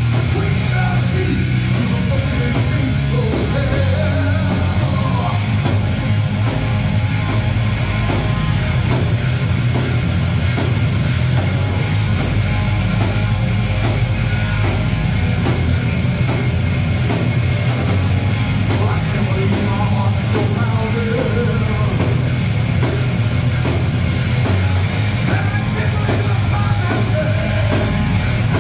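Live heavy rock band playing loud: distorted electric guitars, a drum kit keeping a steady beat and lead vocals, heard from the audience floor.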